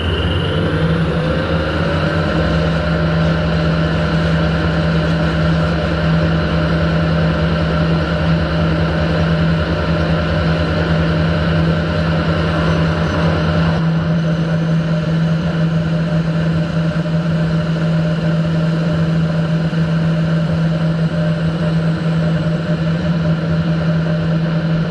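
Metal lathe running, a steady machine hum and whine. Its pitch rises over the first couple of seconds and then holds, and the deepest part of the hum drops away about halfway through.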